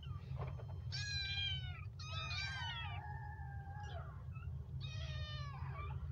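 Young kittens meowing: several high calls that each fall in pitch, one drawn out in the middle, over a steady low hum.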